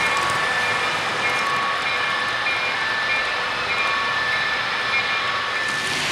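Model freight train rolling along the layout's track: a steady rushing rattle of wheels on rail, with faint short squeals coming and going.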